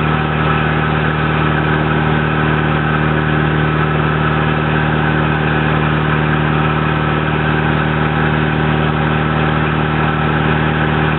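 Toyota 22R four-cylinder engine running on wood gas, driving a 25 hp three-phase induction motor used as a generator; it runs at a steady, unchanging speed.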